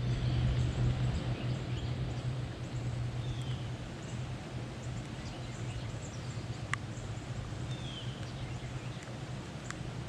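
Steady rain with a low hum that fades out after about four seconds. A bird gives a short falling chirp every few seconds, and there are a few sharp clicks near the end.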